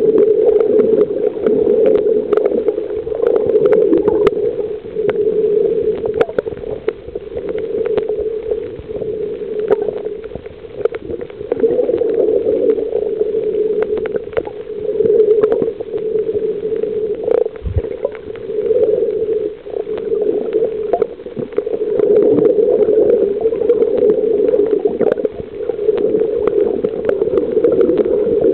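Muffled underwater sound of swimming on a reef: a steady, dull rushing of water that swells and fades, with scattered small clicks and crackles through it.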